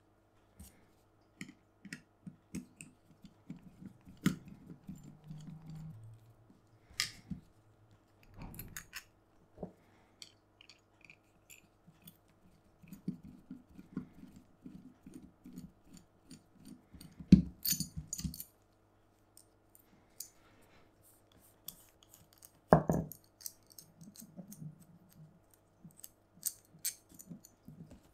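Hand-work sounds on an electric bass at the bench: scattered clicks, taps and small metallic clinks of tools and hardware, with bursts of quick rattling and two louder knocks, one in the middle and one later on. A faint steady hum sits underneath.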